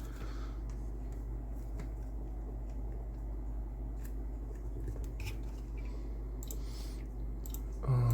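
Steady low electrical hum, with a few faint clicks and taps of small handling work on the bench.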